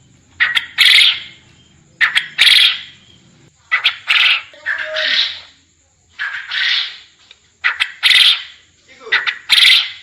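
Quail calling over and over, about six times, each call a few short quick notes followed by a longer one, repeated roughly every one and a half seconds.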